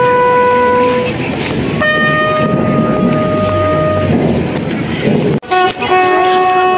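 Military band brass horn playing a slow funeral tune in long held notes, each note held steadily for one to two seconds and then changing pitch, over a low murmur of the crowd. There is a brief dropout about five and a half seconds in.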